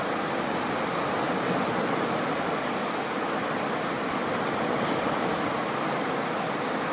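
Small ocean waves washing on a sandy beach, a steady even wash of surf with no separate breaks standing out.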